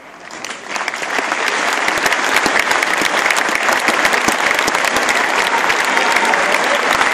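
Football stadium crowd breaking into applause, rising over about the first second to steady, dense clapping.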